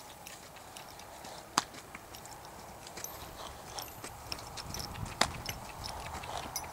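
Quarter Horse colt's hooves beating on the soft sand of a round pen as it trots and lopes, with scattered small clicks and two sharp, louder clicks, one about a second and a half in and one about five seconds in.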